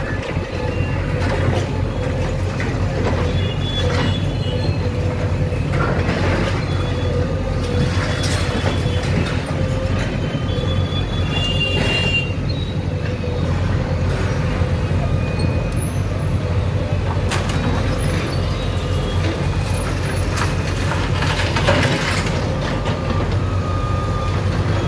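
JCB backhoe loader's diesel engine running steadily under load, with scattered knocks and clatter every few seconds.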